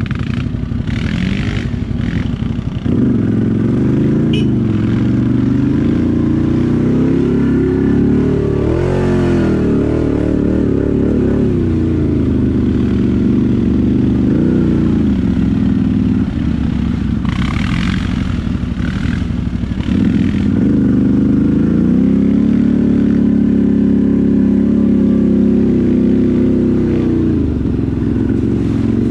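ATV engine running under load, its pitch rising and falling as the throttle is opened and closed, getting louder about three seconds in and again about two-thirds of the way through. A few short rushing noises sit over it near the start and about two-thirds through.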